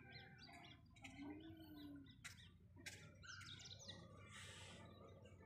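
Faint birdsong: many small birds chirping in quick, short calls, with a couple of sharp clicks about two and three seconds in.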